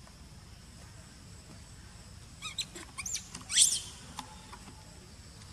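Young macaque giving a short burst of high-pitched squeals that rise and fall, about halfway through, in a squabble over food with an older monkey.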